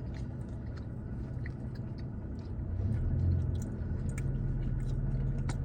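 A person chewing a macaron close to the microphone, with small crisp clicks, over a low steady rumble that swells about halfway in.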